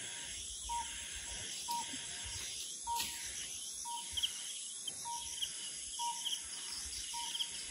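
Night insects chirring steadily, with a short single-pitched note repeating about once a second.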